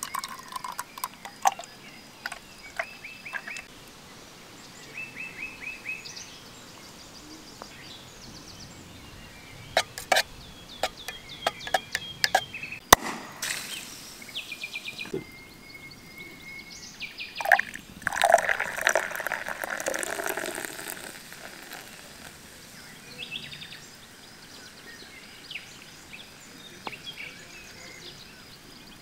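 A glass bottle of sparkling water is opened about halfway through, a sharp click with a short hiss of escaping gas. A few seconds later it is poured into a steel cup, rushing and fizzing for about three seconds as it foams up. Small birds chirp in short trills throughout.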